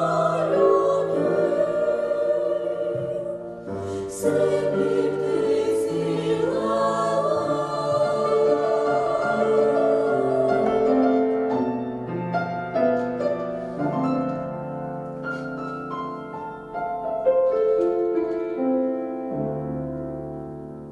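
Vocal ensemble singing a song in chorus with instrumental accompaniment; the voices end about halfway, and the accompaniment plays on alone, fading near the end.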